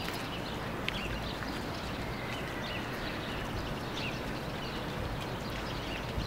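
Steady outdoor background noise, with scattered faint high chirps and a few light clicks.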